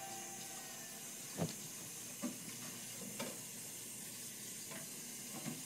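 Steady background hiss with no music, broken by five light knocks or clicks spread about a second apart, the first, about a second and a half in, the loudest: handling noise of something being worked at with the hands.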